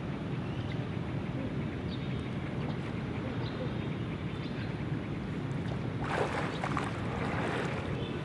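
Water splashing for about two seconds, starting about six seconds in, as a swimmer pushes off and swims in an outdoor pool, over a steady low rumble.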